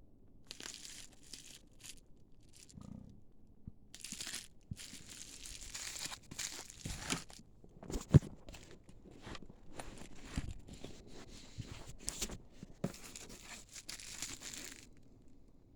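Plastic packaging crinkling and tearing in repeated irregular bursts as LiPo battery packs are unwrapped, with one sharp knock about halfway through.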